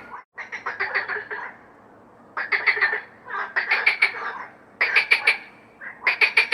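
Frogs croaking and quacking in repeated bursts of rapid pulsed, duck-like calls, about five bursts with short pauses between.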